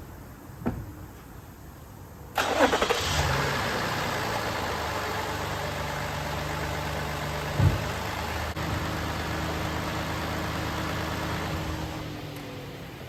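Toyota Highlander 3.5-litre V6 cranked on the starter and catching about two seconds in, then idling steadily before being shut off near the end: the first start after an oil change, run to check the new oil filter for leaks. A single thump partway through.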